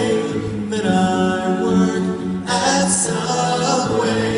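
Six-man male vocal group singing a cappella in close harmony, with a steady sung bass line under held chords. The voices get brighter and busier about halfway through.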